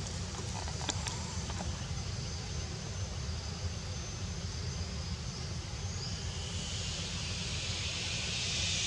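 Steady outdoor ambience: a low rumble under a high hiss that grows louder in the last few seconds, with a few faint clicks near the start.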